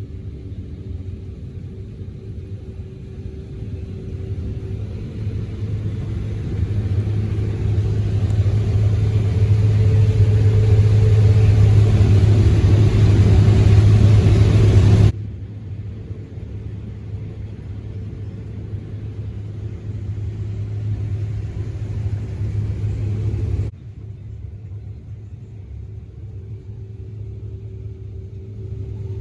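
Heavy farm machinery engine running with a steady low drone, growing louder for several seconds before the sound drops abruptly about halfway through, then steps down again a few seconds later.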